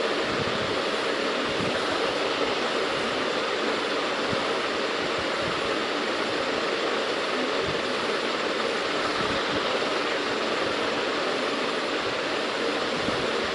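A steady, even hiss of background noise that does not change.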